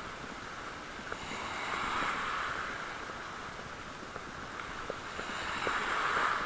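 Shallow sea waves washing in through a rocky gap, the surge swelling and easing twice, with small splashes and trickles of water.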